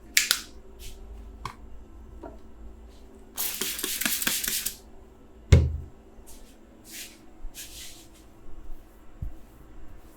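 Hands massaging a head: short, brisk rubbing hisses of palms on hair and skin, one longer rubbing stretch from about three and a half to five seconds in, and a single hard thump of a slap or pat about five and a half seconds in.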